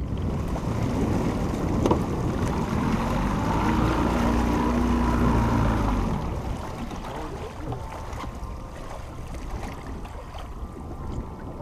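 A boat's outboard motor running, its pitch rising and falling, then easing off about six seconds in, with wind buffeting the microphone.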